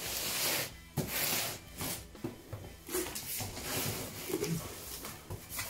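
Packing tape being ripped off a cardboard box in two long pulls, then shorter scraping and rustling as the cardboard flaps are pulled open.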